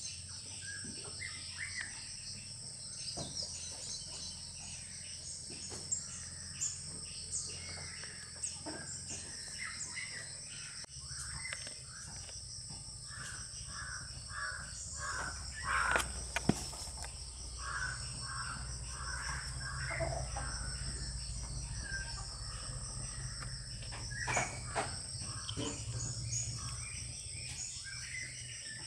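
Steady high-pitched chorus of crickets or similar insects, with runs of short repeated calls and a few sharp clicks, the loudest clicks about halfway through.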